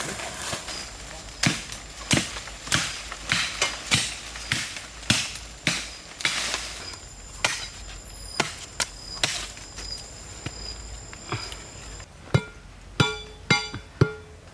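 A blade chopping wood with repeated sharp strokes at an uneven pace, about one to two a second, over a steady high thin whine. Near the end the whine stops and quicker, ringing, pitched knocks take over.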